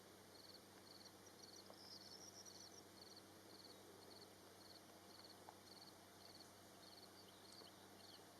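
Faint cricket chirping: a short high chirp repeated steadily about twice a second, over quiet rural background, with a bird chirping briefly about two seconds in.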